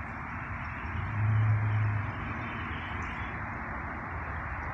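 Steady outdoor background noise, with a low hum that swells briefly about a second in.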